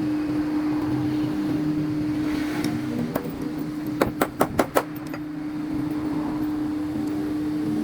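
Steady motor hum, with a single sharp click about three seconds in and a quick run of about five sharp knocks a second later.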